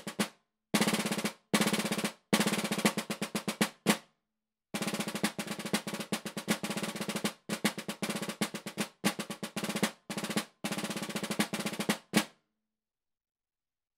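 Snare drum played with wooden sticks in a rudimental solo: fast rolls and runs of accented strokes broken by short rests, closing on one loud stroke near the end.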